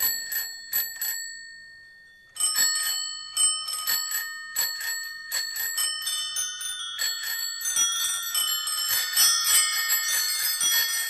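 Many bicycle bells ringing in quick, overlapping rings. A few rings open it and die away, then after a short pause the ringing starts again and grows denser toward the end.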